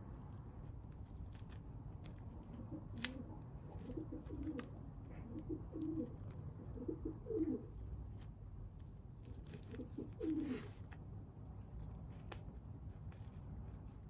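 Feral pigeon (rock dove) giving a string of short, low coos from about two and a half seconds in, then another pair around ten seconds in, the loudest near the end. Faint rustling and a few light clicks from the stretchy bandage being wrapped around it.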